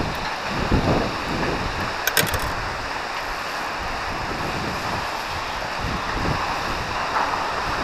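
Wind buffeting the microphone over the wash of choppy river water, with gusty low rumbles. A short burst of small clicks about two seconds in.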